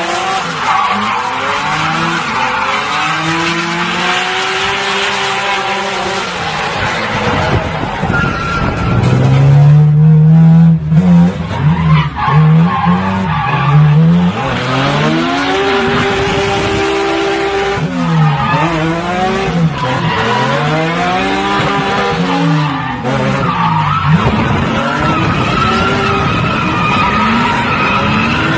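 Drift car engines revving hard and falling back over and over, the pitch rising and dropping every second or two, over a constant hiss of skidding tyres. Loudest about nine to fourteen seconds in, where one engine holds high revs; part of it is heard from inside a chase car running alongside.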